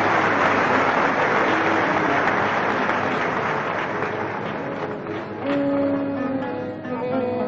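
Concert audience applauding, the clapping dying away over several seconds as the orchestra comes back in with long held notes about five seconds in.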